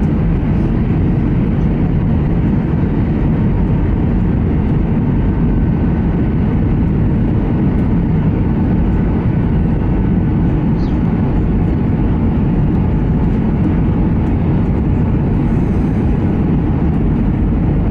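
Airbus A320 cabin noise on approach: the steady, deep roar of the engines and airflow, with a faint whine above it.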